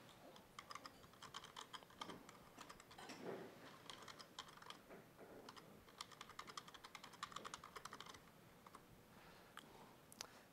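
Faint typing on a laptop keyboard, in several runs of quick keystrokes with short pauses between them.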